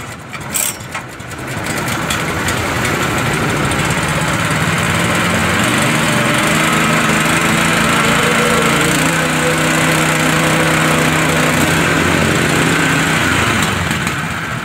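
Honda WB30XN water pump's GX160 single-cylinder four-stroke engine pull-started by recoil cord, catching within about a second and then running steadily while pumping water. The engine sound winds down near the end as it is shut off.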